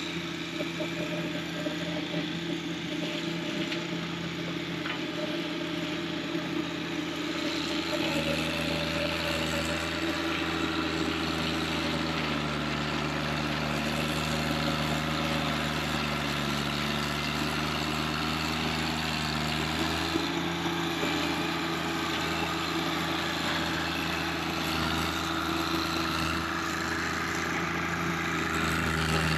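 John Deere 1025R compact tractor's three-cylinder diesel running under load as it drives a flail mower through blackberry vines. It gets louder about eight seconds in, then its pitch sags for several seconds and recovers: the engine bogging as the mower packs up with vines.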